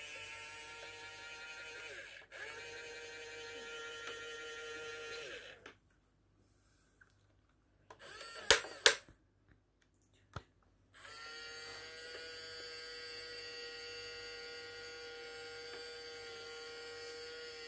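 Small electric gear motors of a 1/16 RC Tiger I toy tank running with a steady whine, which winds down about a third of the way in. After a pause come two sharp cracks about half a second apart, then a single click, and the motor whine starts up again.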